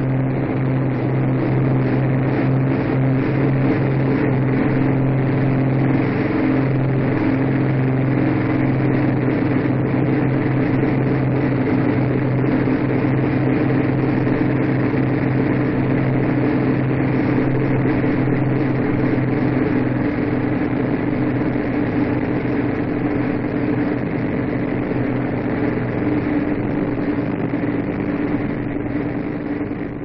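Four Rolls-Royce Merlin engines of an Avro Lancaster bomber at take-off power, heard from inside the aircraft: a loud, steady drone with a deep hum. Its pitch shifts slightly about ten seconds in, and it starts to fade near the end.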